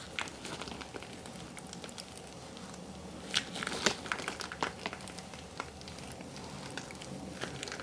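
Plastic zipper bag crinkling in the hands while mashed potato filling is squeezed out through its cut corner: faint rustling with scattered small crackles, a few louder ones around the middle.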